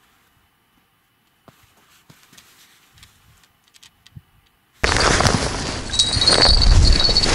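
Near silence with a few faint clicks, then, about five seconds in, loud wind rumble on a handheld camera's microphone starts suddenly, with rustling and sharp handling clicks.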